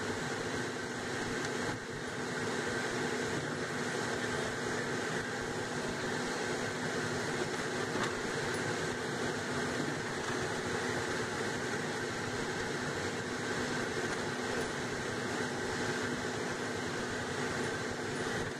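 Steady road and engine noise of a moving car, heard from inside the cabin, with a faint constant hum.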